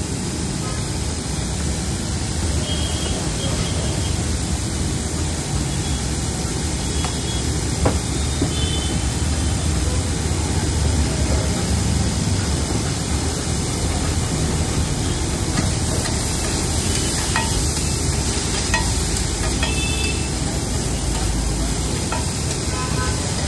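Shredded cabbage and carrots sizzling and frying on a large flat iron tawa, a steady hiss. Toward the end, metal spatulas stir the vegetables and click and scrape against the griddle a few times.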